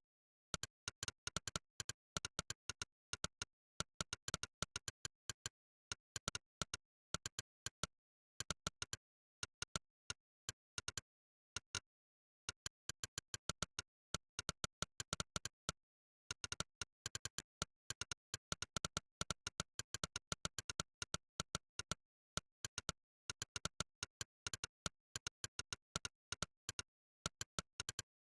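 Monkeytype's 'click' typing sound effect: one short, sharp click for each key pressed. The clicks come in quick runs as words are typed, with short pauses every few seconds and dead silence between clicks.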